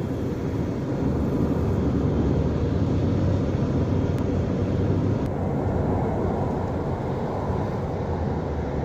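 Steady low rumble of a moving vehicle's road and wind noise.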